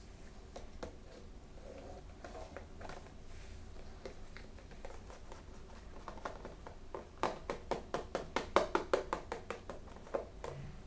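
Hands opening and handling plastic toy packaging: scattered clicks and taps, with a quick run of sharper clicks about seven seconds in.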